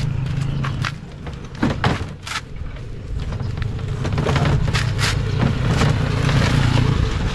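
A motor engine running steadily at idle, with scattered clicks and knocks over it.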